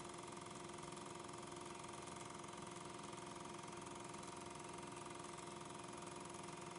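Steady machine hum with a few held tones and a fine, fast flutter: the running noise of the film-transfer equipment, since the regular 8mm footage itself carries no sound.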